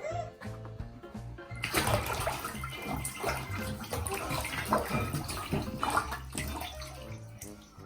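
Bathtub water sloshing and splashing, starting about two seconds in, over background music.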